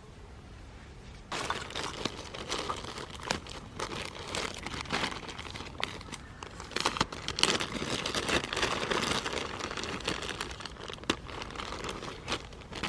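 Crinkling and crumpling, a dense run of small crackles that starts about a second in and keeps going.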